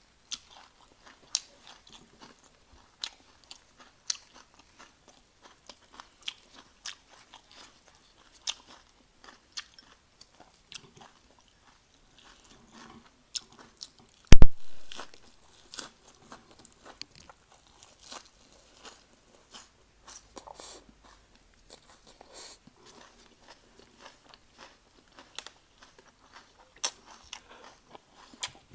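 Close-up eating sounds: crispy bánh xèo wrapped in fresh lettuce and herbs being bitten and chewed, with scattered crisp crunches and one much louder crunch about halfway through.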